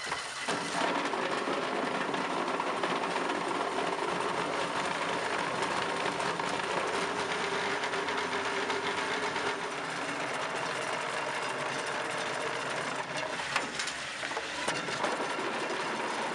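A motor-driven machine running steadily with a fast mechanical clatter, with a few sharp knocks near the end.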